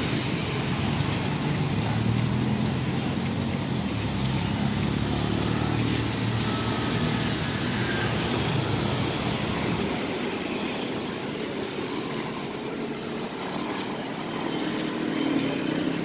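Road traffic: cars and motorbikes driving past with engines running. It is busiest for the first several seconds, eases off, then picks up again near the end.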